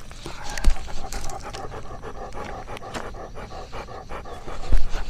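Old dog panting rapidly and steadily, right at the microphone, with a few scattered clicks and a couple of heavy thumps near the end.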